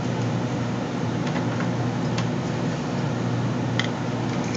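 Steady background hum and hiss, with a few faint clicks as a small circuit board is handled on a table.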